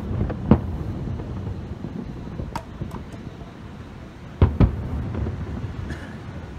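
Aerial firework shells bursting: a boom about half a second in and a double boom about four and a half seconds in, each followed by a low rumbling echo, with a couple of fainter sharp cracks near the middle.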